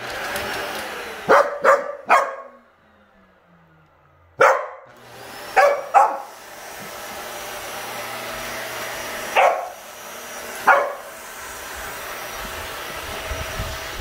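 Vacuum cleaner motor running while a dog barks at it, eight sharp barks in all: three in the first two seconds, three between about four and a half and six seconds, and two more near nine and a half and eleven seconds. The motor cuts out about two and a half seconds in, its pitch falling as it winds down, then starts again about four and a half seconds in and builds back up to a steady run.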